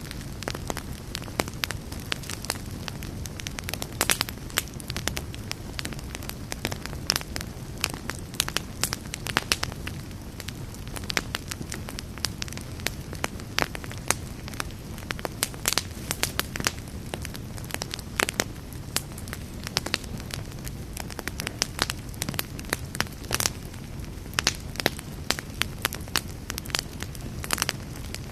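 Wood fire crackling steadily: a low rumble of burning with frequent sharp pops and snaps at irregular moments.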